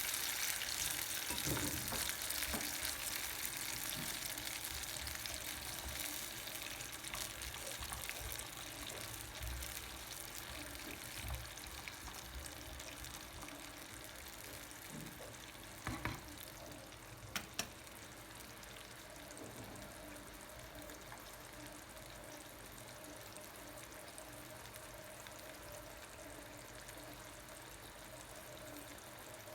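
Food sizzling in a frying pan, the sizzle slowly dying down, with a few light clicks of a utensil against the pan about halfway through.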